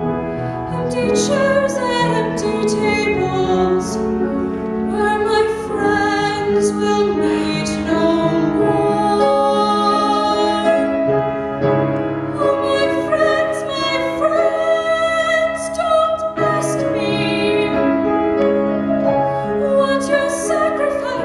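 A young woman sings a slow musical-theatre ballad solo, with piano accompaniment under the voice.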